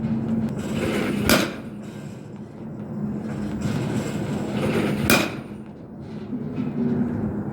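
Baseball bat hitting pitched balls at a batting cage: two sharp cracks, the first about a second in and the second nearly four seconds later.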